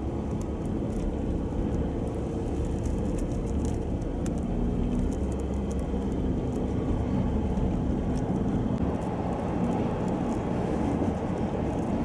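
Steady engine and road noise of a vehicle driving on a snow-covered road, a low continuous rumble with a faint hum in the middle.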